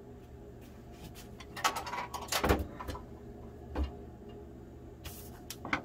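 Handling noise from a Ruger Mini-14 rifle with a bipod fitted: several separate clicks and knocks, with a dull thump about two and a half seconds in and another near four seconds as the rifle is stood on its bipod on the bench.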